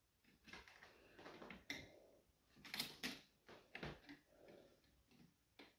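Faint, scattered clicks and light knocks of hands pressing down on a flat-panel TV's metal chassis and plastic clips during reassembly, with a few sharper clicks a little after the middle.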